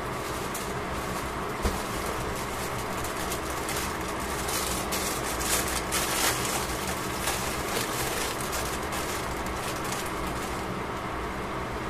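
Beef sizzling in a covered frying pan: a steady hiss with scattered crackles and pops, busiest around the middle, over a faint steady hum.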